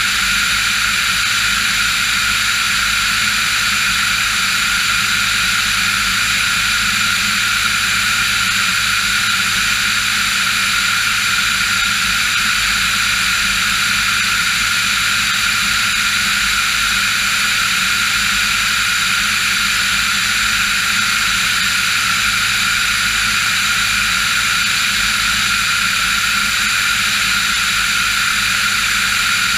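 Diamond DA-40 NG's Austro AE300 turbo-diesel engine and propeller running at a steady power setting in flight, heard from inside the cabin as a constant drone with unchanging tones.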